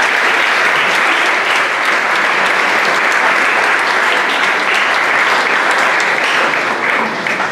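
Audience applauding: dense, steady clapping from a large crowd that thins out near the end.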